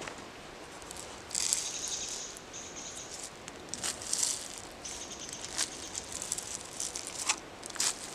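Sunflower seeds poured from a metal cup into a hand, rattling and pattering in short bursts, with a few sharp clicks near the end.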